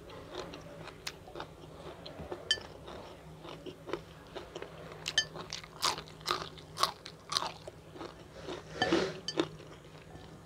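A person chewing and crunching a mouthful of fried chicken and long-bean chilli sambal close to the microphone, with irregular sharp crunches that come thicker in the second half.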